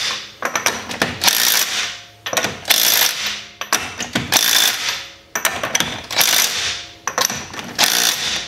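Hand ratchet clicking in repeated short strokes, about one a second, as wheel lug nuts are run down snug.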